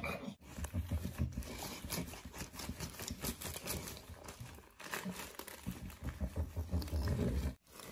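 Parchment paper crinkling and rustling in quick irregular crackles as an Old English Bulldog noses and licks at it on a baking sheet.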